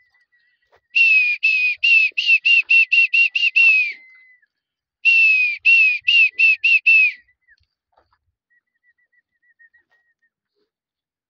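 Rapid series of short, high whistle-like notes, about four or five a second, in two runs of two to three seconds each, with a faint steady high tone between them.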